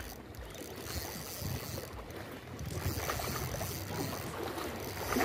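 Wind rumbling on the microphone over sea water washing against shore rocks, a little louder from about halfway through.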